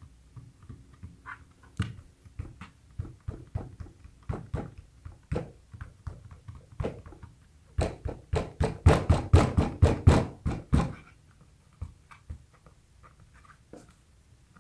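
Hands patting and pressing clear grip tape down onto a wooden skateboard deck: scattered light taps, then a quick run of about a dozen firmer slaps, some four a second, for about three seconds in the middle.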